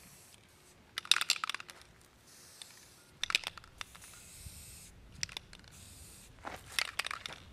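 Aerosol can of Krylon spray paint in use: its mixing ball rattles in three short bouts of shaking, with brief hissing sprays between them, the longest about four seconds in.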